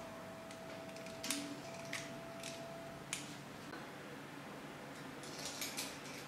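Soft clicks and taps of a metal spring-release scoop and a spoon against a metal muffin tin and mixing bowl as batter is portioned into paper cups. There are a few separate clicks in the first half and a quick cluster of them near the end.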